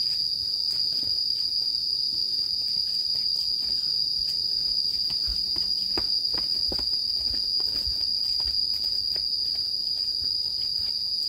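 Insects singing in one steady, unbroken high-pitched drone, with faint footsteps on the trail beneath it.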